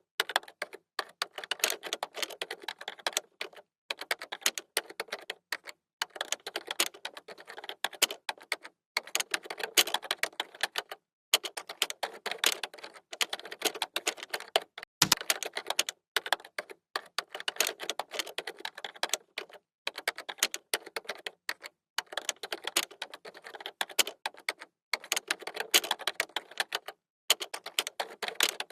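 Computer keyboard being typed on, fast runs of key clicks broken by short pauses every second or two, with one heavier keystroke about halfway through.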